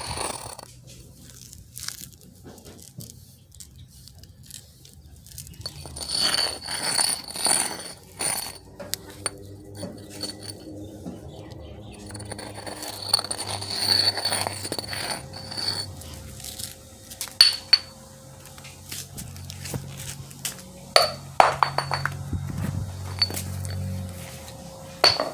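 Intermittent clinks, taps and scrapes of small hard objects, some with a short high ringing, coming in clusters, over a faint low hum.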